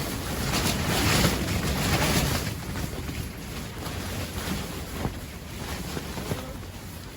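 Strong gale-force wind gusting and buffeting the microphone, rising into a loud gust about a second in and then easing to a steady rush.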